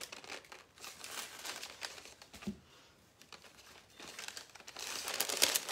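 Sheet of paper under a cake crinkling and rustling as hands press shredded coconut onto the frosting, with scattered crackles that grow denser and louder near the end.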